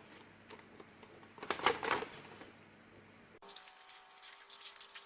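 A short cluster of sharp clicks and taps from hand work on a car subwoofer's amplifier circuit board, about one and a half seconds in, with a few fainter ticks around it. A little past halfway the background changes abruptly to a faint steady hum.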